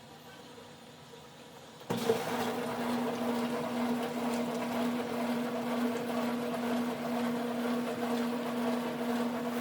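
Brastemp Ative 8 dishwasher starting its cycle about two seconds in: its pump starts suddenly and runs with a steady hum over the rush of water.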